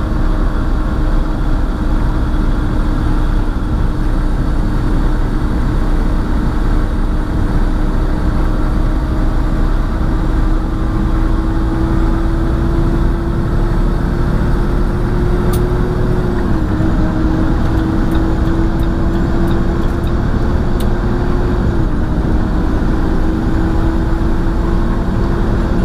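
Inside a semi truck's cab while it drives: steady diesel engine drone and road noise. One tone in the drone creeps slowly up in pitch and dips slightly twice in the second half.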